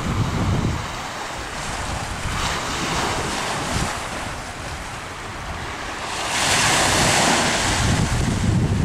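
Small Baltic Sea waves washing onto the shore, with wind gusting on the microphone. The wash swells louder about six seconds in.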